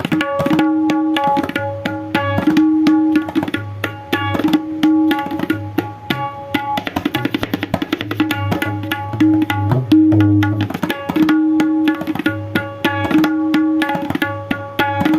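A new pair of tabla played in a sound check: quick strokes on the treble drum ringing at one steady tuned pitch, over deep resonant bass strokes. A very fast run of strokes comes about seven seconds in.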